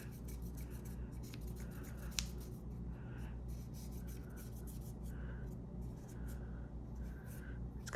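Cotton swab scrubbing inside an opened multitool, faint soft rubbing strokes about once a second, with one sharp click of metal about two seconds in.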